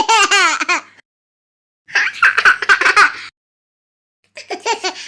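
Laughter sound effect: high-pitched giggling and laughing in three separate bursts, each under about a second and a half long, with complete silence between them.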